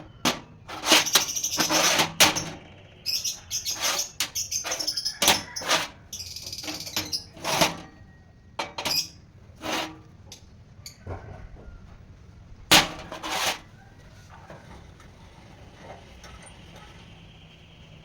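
An irregular series of sharp knocks and clatters, several with short hissing scrapes, thinning out after about eight seconds, with a last loud pair near thirteen seconds.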